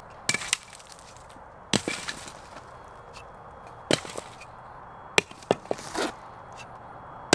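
A series of sharp knocks and cracks at irregular intervals, a few seconds apart, like wood or a hard object being struck.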